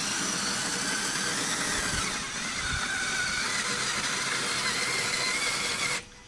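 Motor-driven grain mill crushing malted barley and grain, running steadily with a wavering whine over the grinding noise, then cutting off suddenly near the end.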